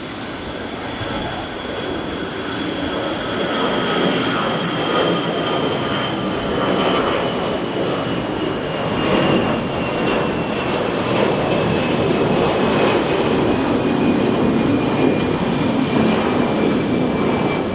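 Airbus A321-213 jet airliner taking off, its twin CFM56 turbofan engines at take-off thrust. The roar builds steadily louder, with a thin high whine that slowly falls in pitch as the plane passes.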